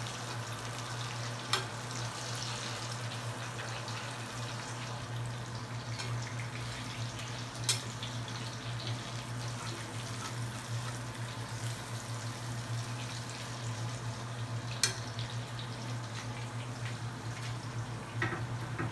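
Salmon steak sizzling as it pan-fries in oil, with three sharp clicks of the cooking utensil against the pan spread through, over a steady low hum.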